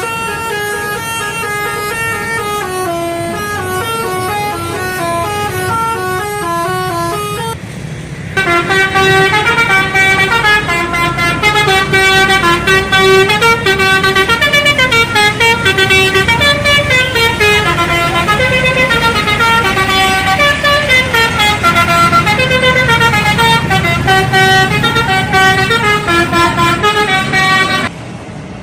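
Bus telolet horn, a set of horn trumpets sounding together, playing quick melodic runs that step up and down in pitch. About eight seconds in there is a short break, after which a louder telolet plays a long run of tunes.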